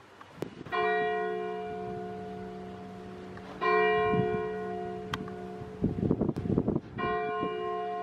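Church bell striking three times, about three seconds apart, each stroke ringing on with a long fading tone.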